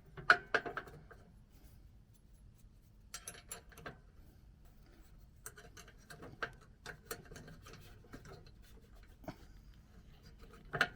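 Faint, scattered clicks and scrapes of small metal hardware being handled: washers and retaining clips being fitted at a riding mower deck's attachment points. A sharper click comes just after the start.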